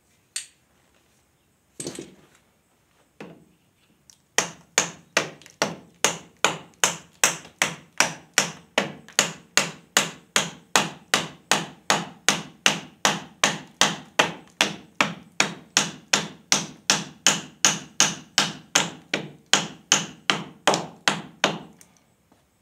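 Hand hammer striking, a few separate blows and then a steady run of about three blows a second that stops shortly before the end.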